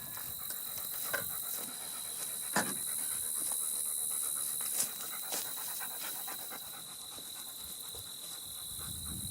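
German shepherd panting steadily, with a constant high-pitched tone behind it and a couple of light knocks.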